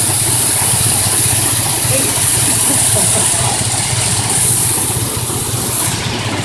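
Water-powered sawmill machinery running with a steady low hum and a loud hiss of water, the hiss cutting off suddenly near the end.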